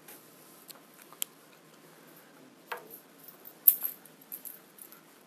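Keys on a lanyard being handled: light jingling and scattered small clicks, the sharpest clink about two-thirds of the way in.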